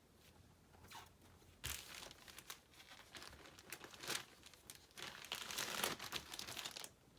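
Packaging crinkling and rustling as a graded comic slab is taken out of its shipping box. It is faint at first, grows louder about two seconds in, and is busiest near the end.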